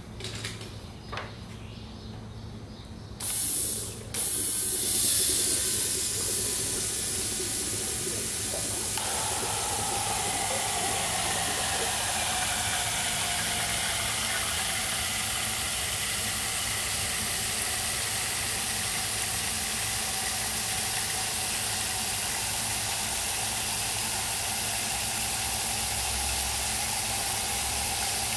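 Decapped LS fuel injectors held wide open on a flow-test rig, spraying fuel into plastic cups with a steady hiss while an electric fuel pump feeds the rails. A brief burst of spray comes about three seconds in, then a moment later the spray starts again and runs on evenly.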